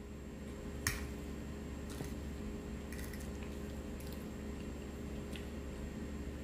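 Metal fork clicking against a plate while scooping soft chicken pot pie, a sharp clink about a second in and a few lighter taps after, with faint squishing of the filling, over a steady low hum.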